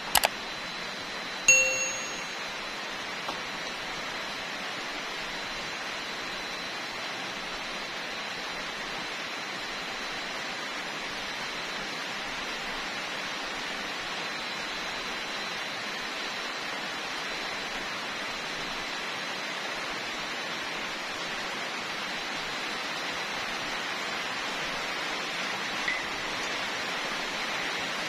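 A steady hiss that grows a little louder near the end. Right at the start a click sounds, and about a second and a half in a single bell-like ding rings out: the sound effect of a subscribe-button animation.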